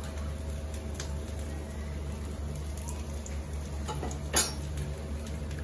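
A metal spatula making small taps and clicks on a frying pan of aloo tikki, with one sharp clink about four seconds in, over a low steady hum.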